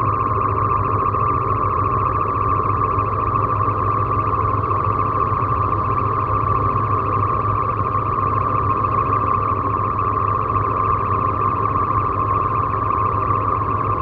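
Live electronic music: a steady, sustained synthesizer drone with a low hum beneath it and no clear beat.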